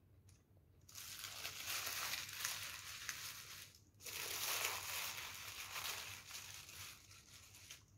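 Crinkling and crumpling of a thin wrapper or bag being handled, in two spells of about three seconds each with a short break between.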